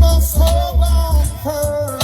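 Reggae music playing loudly, with a heavy bass line and a melodic line, in a gap between sung lines.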